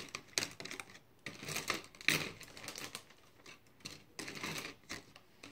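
Irregular clicking and rattling of small hard objects being rummaged through and handled, as when sorting through a pile of paintbrushes.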